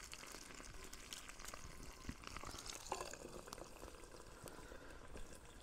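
Faint, steady sizzling of potatoes and apples cooking in a pan over a campfire, with many small crackling ticks.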